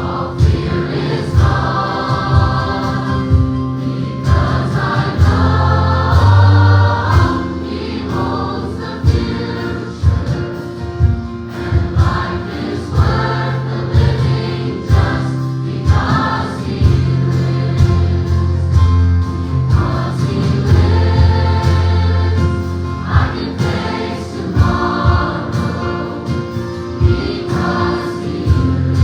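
Gospel choir singing with band accompaniment, a strong bass line and a regular drum beat under the voices.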